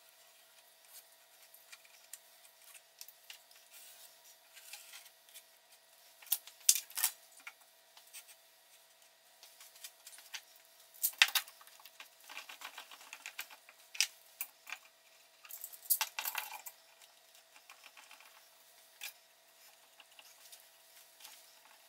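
Clicks, knocks and light clatter of woodworking clamps (spring clamps, a quick-grip clamp and bar clamps) being handled and fitted onto a glued-up white oak lamination. The sharpest knocks come in clusters through the middle, over a faint steady hum.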